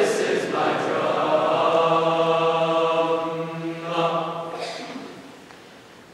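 Men's choir singing: a chord held steady for about three seconds, then a short phrase that fades away about five seconds in.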